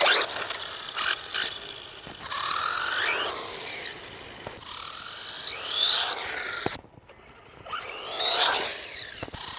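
Wltoys 12428 RC truck's electric motor and gears whining through full-throttle bursts, the pitch rising and falling about four times as it accelerates and slows. It runs on a 2S 5200mAh LiPo battery that gives it enough punch to wheelie hard.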